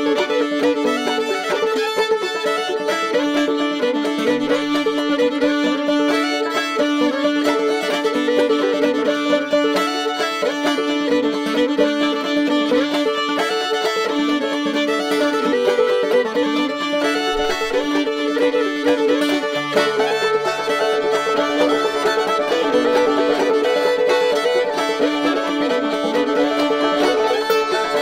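Old-time fiddle tune with clawhammer banjo, played steadily without a break.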